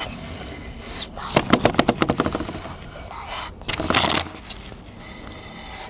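Close handling noise by the microphone: a quick run of about ten clicks or taps in under a second, then a short scraping rustle a couple of seconds later, as fingers work on the wooden surface by the camera.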